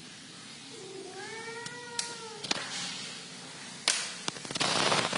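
A cat meows once, a single call rising and then falling in pitch, about a second in. A few sharp clicks follow, then louder bursts of noise near the end.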